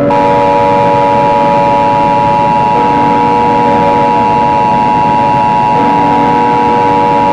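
Emergency Alert System attention signal: the steady two-tone alarm of 853 Hz and 960 Hz sounded together, held without a break, over a bed of background hiss. It is the warning that comes before the spoken emergency message.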